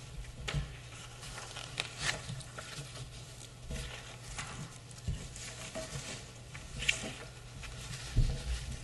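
Sheets of paper rustling and pages being turned and shuffled on a table, with scattered small taps and handling noises and a dull thump near the end, over a steady low hum.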